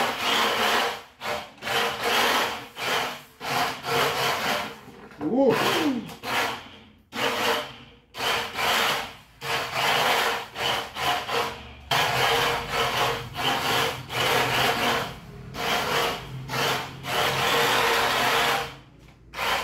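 Small battery-powered 4WD RC drift car, an Auldey Toyota AE86, driven on a tabletop in repeated short bursts: its electric motor buzzes and the tyres scrub and slide across the table each time the throttle is blipped, with brief pauses between bursts.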